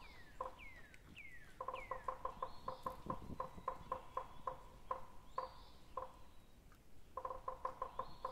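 Animal calls: runs of short, evenly repeated pulsed notes, several a second, that stop and restart. Over them come a few falling chirps and brief higher calls.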